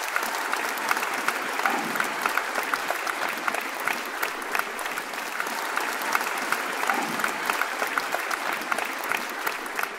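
Audience applauding steadily, many hands clapping at once; it fades out just after the end.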